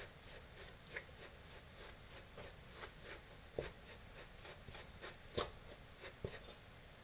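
A hand stirring a dry, crumbly mix of processed bread, corn flour and sweet corn in a stainless steel bowl: faint rhythmic rubbing and scratching, about three strokes a second, with a few light knocks.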